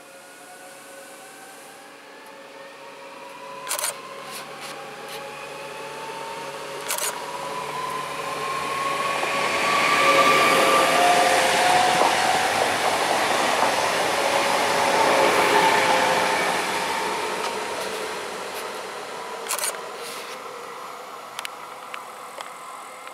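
Electric multiple unit accelerating past, its traction motors whining in several tones that rise steadily in pitch, swelling to its loudest midway and fading again. A few sharp clicks sound along the way.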